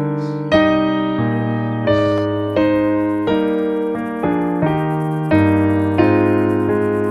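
Background music: a soft piano playing a slow sequence of single notes and chords, a new note struck about every two-thirds of a second and left to ring.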